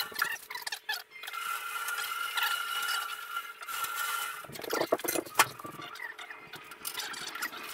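A large bandsaw being worked on by hand: a steady high whine for the first few seconds, then a cluster of sharp metallic knocks and clatter a little past the middle.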